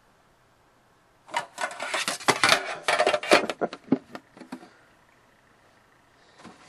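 Handling noise: a dense flurry of short clicks and rustles starting about a second in and lasting about three seconds, then dying away.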